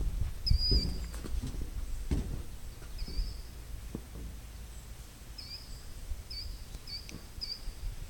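A bird calling in short high chirps, repeated about ten times and more often in the second half, over low irregular thuds of footsteps that fade out about halfway through.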